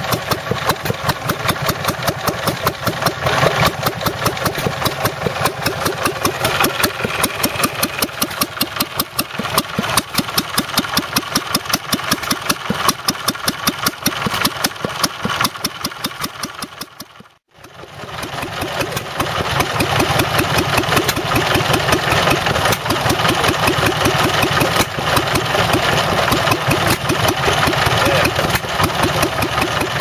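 Small vintage stationary engine running steadily with a fast, even firing beat. About seventeen and a half seconds in, the sound cuts off abruptly, and another small stationary engine is then heard running the same way.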